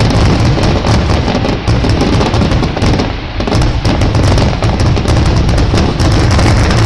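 Fireworks display firing a rapid, continuous barrage of bangs and crackles under a deep rumble, easing briefly about three seconds in before building again.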